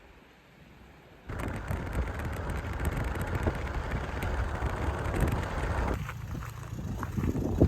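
Wind blowing hard across the microphone, a loud rumbling rush that starts abruptly about a second in and eases briefly near the end.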